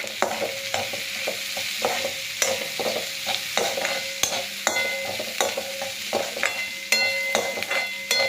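Spatula stirring potato pieces in a kadai, with repeated knocks and scrapes against the pan, some of them ringing briefly, over a steady light sizzle of frying.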